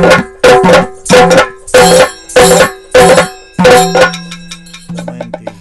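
Yakshagana percussion accompaniment over a steady drone. Loud, ringing strokes come about twice a second, and about four seconds in they give way to lighter, quicker hand-drum strokes.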